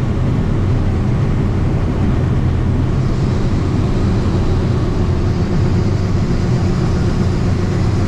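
John Deere S670 combine running steadily under harvest load, heard from inside its cab as a deep, even drone. About three seconds in, its unloading auger starts pouring shelled corn into the grain cart alongside, adding a faint hiss.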